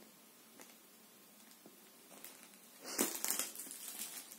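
Small clear plastic packets rustling and crinkling as they are handled, starting about three seconds in after a few faint ticks.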